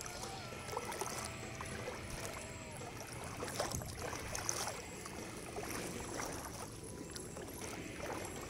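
Water sloshing and lapping, with scattered small clicks and splashes.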